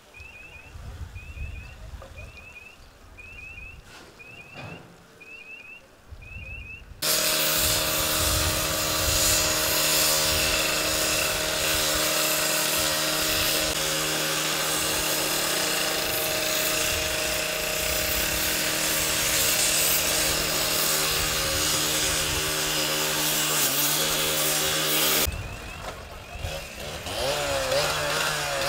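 A two-stroke rescue cut-off saw cuts through a metal roller shutter. It starts suddenly about seven seconds in and runs steadily at full speed with a harsh grinding hiss, dips briefly a few seconds before the end, then picks up again. Before the saw starts, a high double chirp repeats about twice a second.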